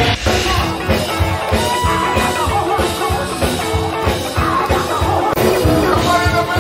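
Upbeat band music with a steady drum beat, guitar and a singing voice.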